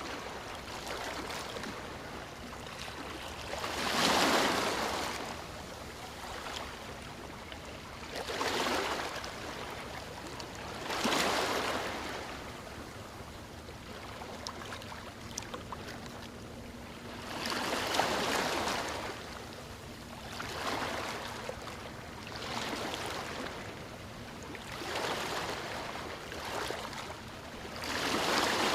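Ocean waves breaking and washing on a beach, one surge every few seconds over a steady hiss of surf.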